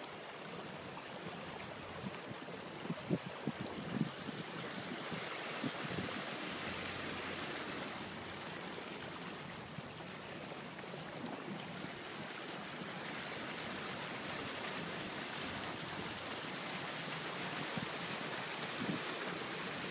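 Steady rushing hiss of water along a moving tugboat's hull, a little stronger from about five seconds in, with a few soft low thumps around three to four seconds in and again near the end.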